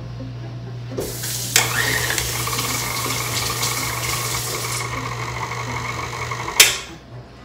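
Kitchen tap running in a steady rush for about five and a half seconds, then shut off with a sharp clack. Underneath, a steady low hum stops right after the tap does.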